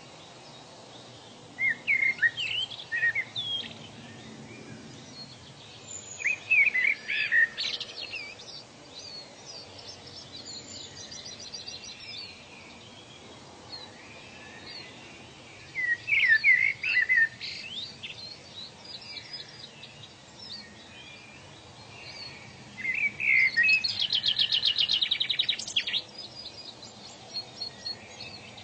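Birds singing in short phrases of quick chirping notes every several seconds, one of them running into a fast, even trill near the end, over a faint steady background hiss.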